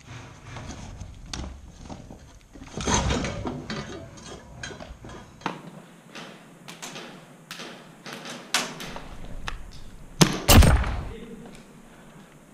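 Irregular knocks, scuffs and thuds of a player and his gear moving over concrete and rubble, with two heavy thuds about ten seconds in.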